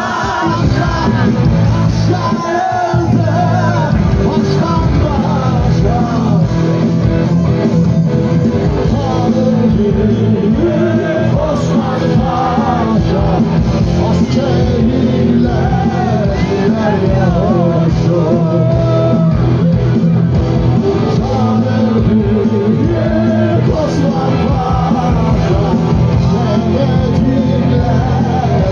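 Live rock band playing, with electric guitars and a male lead singer singing over it.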